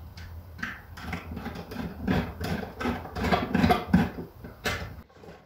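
Hand tools clicking and knocking against the minibike's parts as it is taken apart, a quick irregular run of small knocks over a low steady hum, cutting off about five seconds in.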